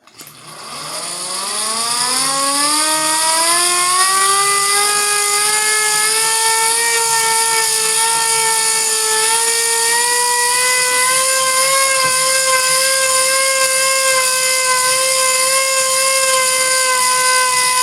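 Tornado siren winding up from a start, its wail climbing quickly in pitch over the first few seconds, then creeping higher and holding a steady tone.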